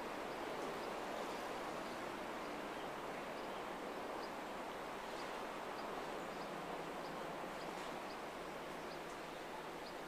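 Steady rush of flowing river water. Faint, short, high-pitched chirps recur every half second or so over it.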